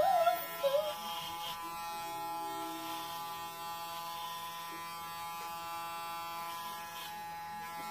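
Corded electric hair clippers buzzing steadily as they cut a man's short hair close to the scalp.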